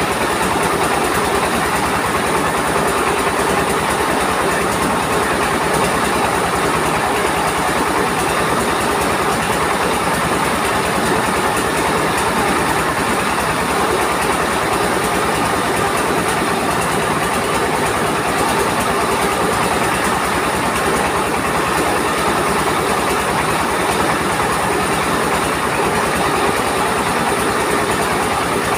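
A mobile rice mill running steadily: its diesel engine drives the belt-driven rice huller and polisher at an even, unchanging pace.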